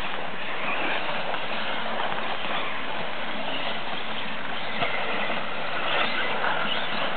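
Electric 4WD RC off-road buggies racing on a dirt track: a steady mix of motor and gear whine with tyre noise.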